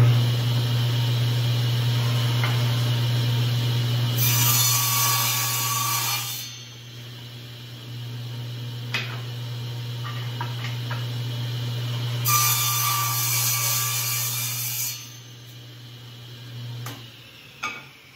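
Table saw motor starting and running with a steady hum. It cuts through a short piece of wood twice, each cut about two seconds long. The saw is switched off about a second before the end, followed by a sharp click.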